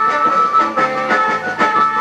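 Instrumental music with a steady beat and sustained melody notes.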